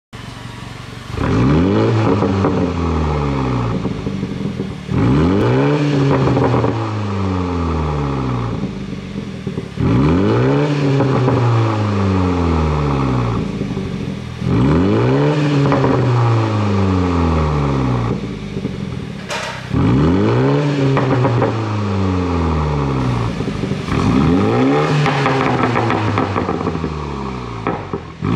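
BMW 330i's turbocharged four-cylinder engine revved sharply about six times, each time falling back over a few seconds. On each fall its pops-and-bangs exhaust tune crackles and pops on the overrun.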